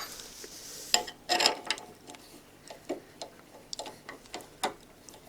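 Irregular small clicks and knocks from a woodturning lathe's small scroll chuck as it is loosened and tightened to reverse a short dowel in its jaws: one sharp click about a second in and a brief rustle, then a string of separate ticks.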